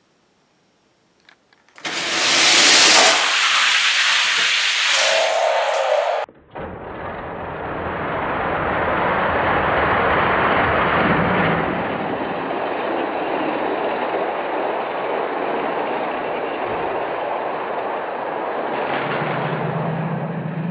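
Several 1/64 diecast cars rolling down an orange plastic Hot Wheels drag track: a loud, even rushing hiss that starts about two seconds in, just after a faint click. It breaks off at about six seconds and goes on as a duller, lower rush.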